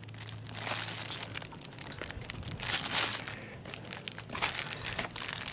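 Plastic wrap around a roll of paper towels crinkling and rustling as fingers grip and turn the roll, in irregular bursts with a louder crinkle about three seconds in.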